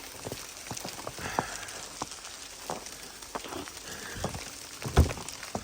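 Sleet and ice pellets ticking irregularly on a surface, with a louder dull thump about five seconds in.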